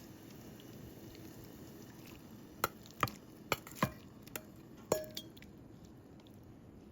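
Kitchenware knocking and clinking during cooking prep: about seven sharp clicks in a couple of seconds, one of them ringing briefly like glass or ceramic.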